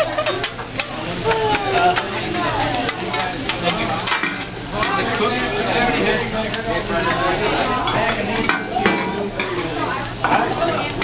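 Fried rice sizzling on a hot steel teppanyaki griddle, a steady frying hiss, with scattered sharp metallic clicks of utensils on the steel, several close together near the end.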